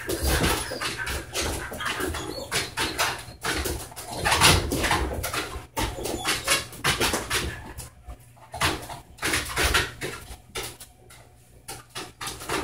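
A tired dog panting and taking treats from a hand, in quick, irregular noisy bursts that ease off about eleven seconds in.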